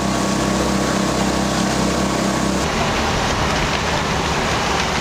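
Fire engine running with a steady drone and a regular pulsing. About two and a half seconds in it cuts abruptly to a steady rushing noise.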